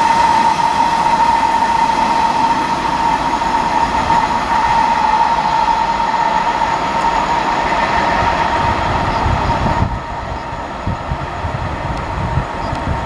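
Freight train of open coal wagons rolling past and away on the rails, with a steady high tone over the rolling noise that fades about halfway through. The noise drops sharply about ten seconds in as the last wagons move off, leaving a lower rumble.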